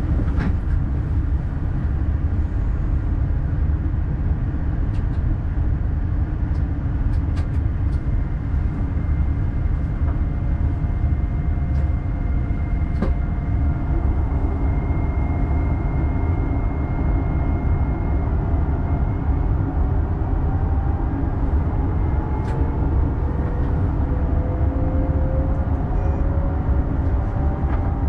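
An X40 double-deck electric multiple unit running, heard from inside the driver's cab: a steady low rumble with several held tones. From about halfway through, the electric motors' whine rises slowly in pitch as the train picks up speed. A few sharp clicks stand out.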